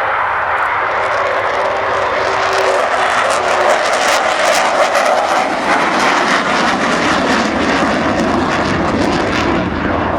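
Jet noise from the Avro Vulcan's four Rolls-Royce Bristol Olympus turbojets as the bomber flies its display. The noise swells a couple of seconds in and takes on a harsh crackle through the middle.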